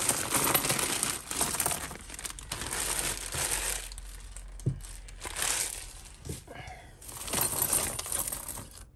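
Grey plastic mailer bag crinkling as a bag of mixed costume jewellery is tipped out, the metal, glass and bead pieces clattering and clinking together. After a quieter stretch, the pieces clink and rattle again as hands rummage through the pile near the end.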